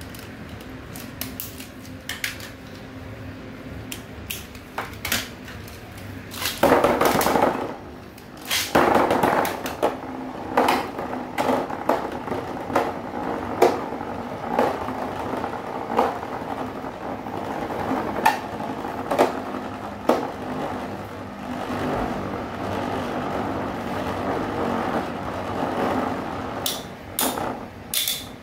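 Metal-rimmed Infinity Nado battle tops in a plastic stadium: clicks as they are fitted to the launcher, two loud rushes around seven and nine seconds in as they are launched, then the tops whirring around the bowl with repeated sharp clicks as they strike each other.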